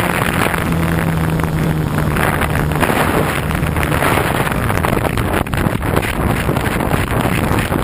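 Wind buffeting a bare GoPro microphone on a radio-controlled FPV plane in flight, with the propeller's low drone under it that fades out about three seconds in.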